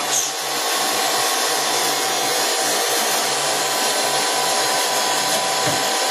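Warner & Swasey M4630 ram-type turret lathe running under power, its headstock and spindle giving a steady whir with a faint steady whine over it.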